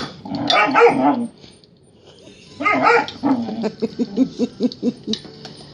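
Cane Corso puppy barking at a chew toy during play: a loud bark early, another near the middle, then a quick run of short yips, about five a second.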